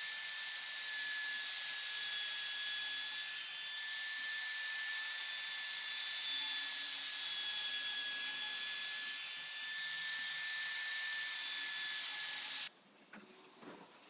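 Compact trim router running at a steady high whine as it routes along the edge of a pine board. The whine cuts off abruptly near the end, leaving a few faint ticks.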